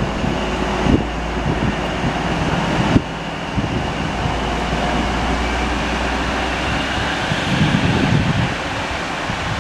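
High Speed Train pulling away from the platform, its Class 43 diesel power car running with a steady high whine over a rumble. A knock about three seconds in, after which the low hum drops away.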